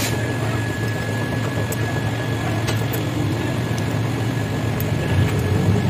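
A steady low mechanical drone from a machine running in the background, with a few light clicks of small metal parts being handled.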